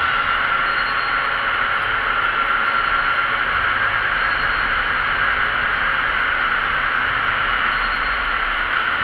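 Steady road noise of a moving vehicle: a constant hiss with a high-pitched whine that holds level throughout.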